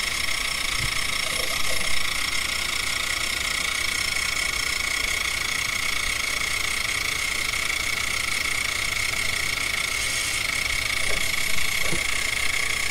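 Face milling on a CNC-converted benchtop milling machine: a 2.5-inch face mill with 45-degree inserts cuts aluminium stock about 20 thousandths deep at about 25 inches a minute. The cut gives a steady hiss with a steady high whine over it.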